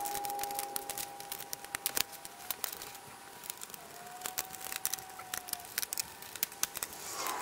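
Dense rapid clicks and plastic rattles from laptop casing parts and screws being handled during disassembly, played back sped up. A thin steady tone runs under it for the first couple of seconds, and a shorter one comes later.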